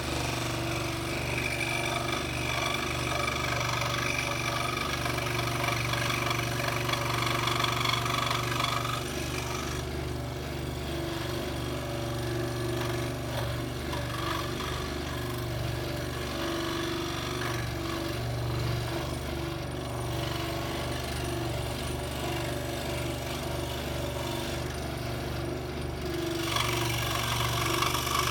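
Scroll saw running steadily, its blade reciprocating rapidly as it cuts through wood. The higher rasping cutting noise eases about ten seconds in and picks up again near the end.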